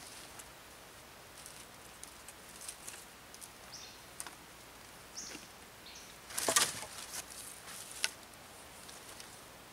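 Handmade twig broom being handled and swept: light rustling and crackling of dry twigs, then a louder scratchy sweep over dirt about six and a half seconds in and a sharp click a moment later.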